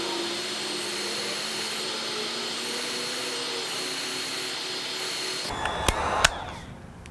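Heat gun blowing steadily with a faint whine while it warms the iPad's glass to soften the screen adhesive. It cuts off about five and a half seconds in, followed by two sharp clicks.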